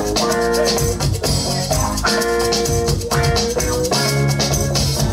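Live band music with no singing: held chords over a moving bass line, and a shaker rattling steadily in time.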